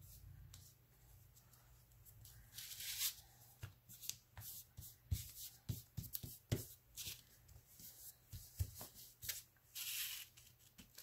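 Hands pressing and smoothing glued paper down onto a paper envelope, making irregular rustles and soft taps. There is a longer rustle about three seconds in and another near the end.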